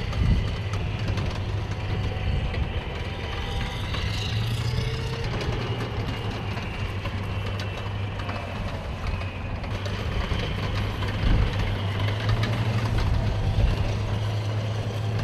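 Diesel engine of a tracked AAV7 amphibious assault vehicle running with a steady low drone, its pitch stepping up slightly a couple of times.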